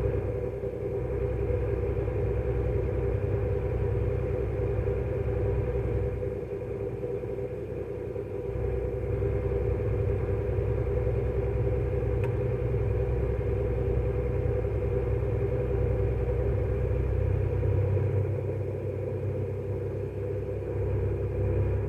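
Engine of a farm vehicle running steadily in a harvest field: a constant low drone with a steady hum. It eases a little about six seconds in, then picks back up.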